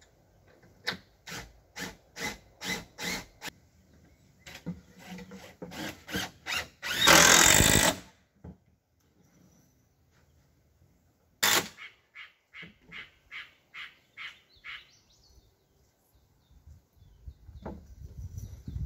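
Power drill driving screws into a wooden frame: runs of short trigger pulses, about two or three a second, with a louder full-speed run of about a second midway, then further short pulses that grow fainter.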